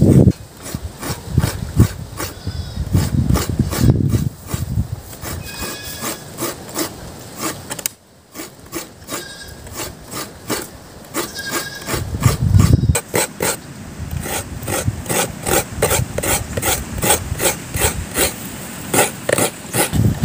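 Steel knife blade being sharpened in quick repeated rasping strokes, a few a second, steadier and faster in the second half.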